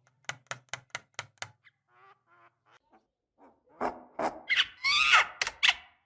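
Javan myna (jalak kebo) calling: a quick run of about five sharp clicking notes, a few faint warbled notes, then loud harsh calls in the second half.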